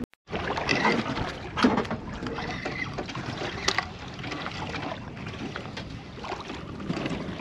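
Wind on the microphone and sea water washing against a boat's hull: an even rushing, with a few faint knocks.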